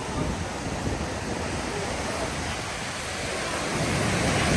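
Ocean surf washing onto the beach in a steady rush, swelling slightly toward the end, with wind on the microphone.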